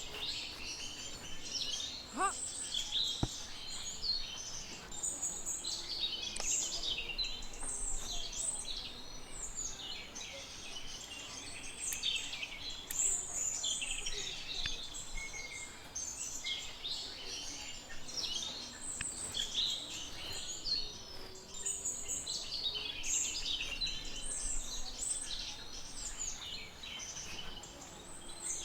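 Many small birds chirping and twittering at once, a dense, unbroken chatter of short high calls.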